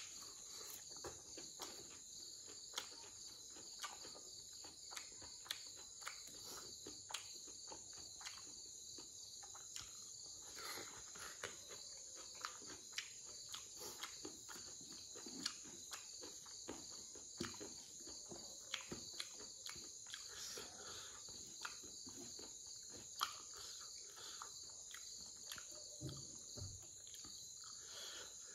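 Close-up wet chewing and lip-smacking of someone eating pork and rice by hand, with many short sharp clicks about every half second to second. Underneath runs a steady high-pitched chirring of night insects.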